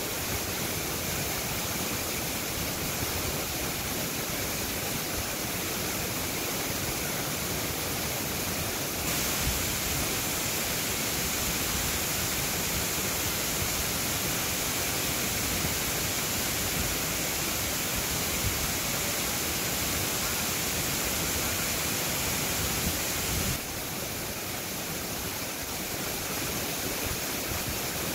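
Waterfall cascading over rocks: a steady rush of falling water. It turns brighter and slightly louder about nine seconds in and drops back about five seconds before the end.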